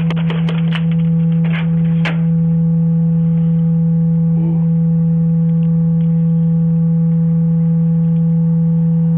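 A loud, steady low buzzing tone that holds unchanged, with a quick run of sharp clicks over the first two seconds.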